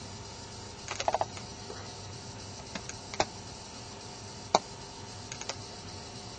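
Scattered light clicks and knocks over a steady low hum: a quick run of several clicks about a second in, then single sharp clicks a few times after.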